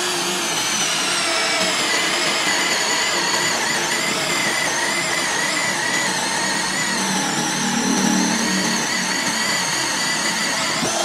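Mollar CD12300 12 V brushless cordless drill boring into meranti wood at its low speed setting: a steady motor whine that wavers slightly as the bit cuts, running continuously and stopping just at the end.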